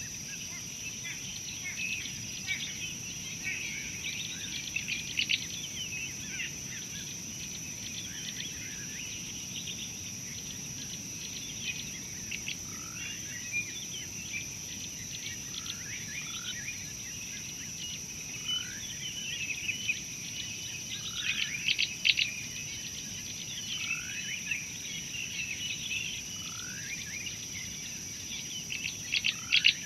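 Outdoor bird chorus: many small birds chirping, with a short rising call repeated every couple of seconds in the second half. A steady high whine runs underneath.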